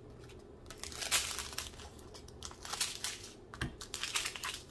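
Thin plastic bags of diamond-painting drills crinkling in irregular bursts as a strip of bags is handled and cut apart with scissors.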